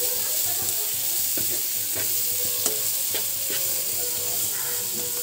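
Chopped onion, tomato and capsicum sizzling in a non-stick frying pan as a spatula stirs them, with scattered taps and scrapes of the spatula against the pan.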